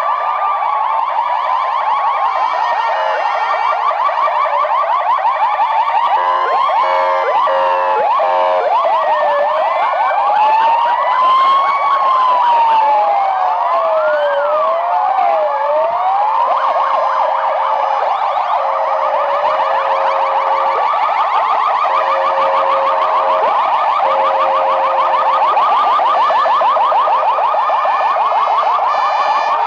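Several ambulance sirens sounding at once and overlapping: slow wails rising and falling, rapid yelps, and alternating two-tone patterns, all loud and continuous.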